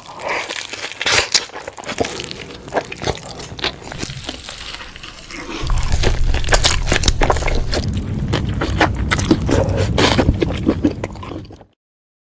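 Close-miked biting and chewing of a burger sandwich: many sharp crunches and wet mouth clicks. A low steady hum joins about halfway, and everything cuts off suddenly near the end.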